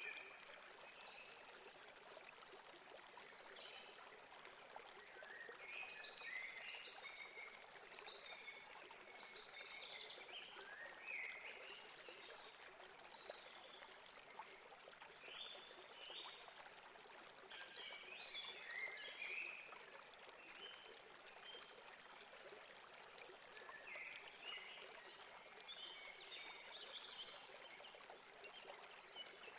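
Faint steady rush of a river or stream, with small birds chirping on and off in short clusters above it.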